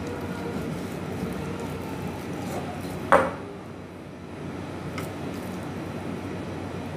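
A kitchen knife set down on a plastic cutting board: one sharp clink with a short ring about three seconds in, and a lighter click near five seconds, over a steady background hiss.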